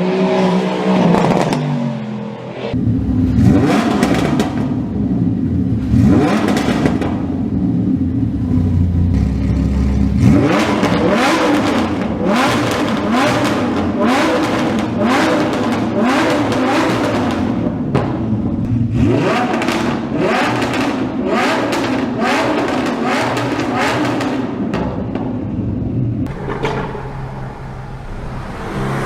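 Performance car exhausts being revved, each rev rising and falling away. On the overrun they give repeated crackles and pops, denser in the middle of the stretch. The segments appear to come from more than one car.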